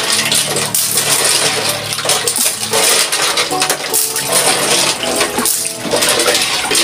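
Clams clattering and clinking against one another and the steel mesh of a colander as they are washed under a running tap, with water splashing into the sink.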